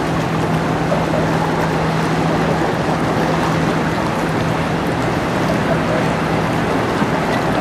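General cargo ship passing close by: a steady low hum from the vessel over the constant rush of its bow wave and wash along the hull. The hum weakens after about three seconds.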